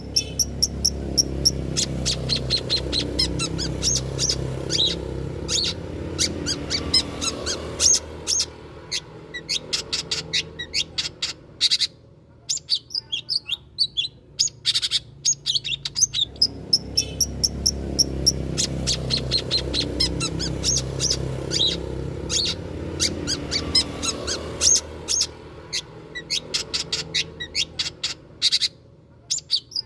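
Long-tailed shrike (cendet) song used as a lure: rapid runs of sharp chirps and chattering notes with short pauses, over a low rumble. The same passage repeats about halfway through.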